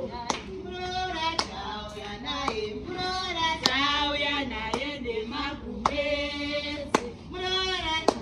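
Women singing together, with hand claps keeping an even beat of about one a second.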